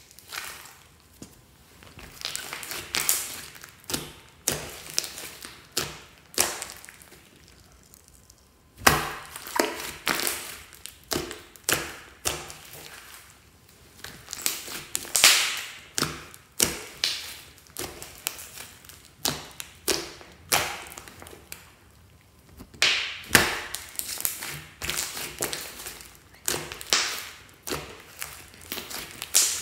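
Fluffy slime being squished and pressed by hand: a run of short crackly squelches and pops, roughly one a second, with a couple of brief pauses.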